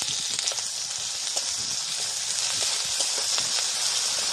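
Sliced onions with garlic and ginger paste frying in hot oil in a metal wok, a steady sizzle. A few light clicks of a metal spatula stirring sound through it.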